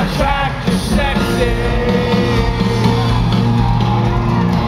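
A live country band playing with a lead singer, heard from the audience at a concert.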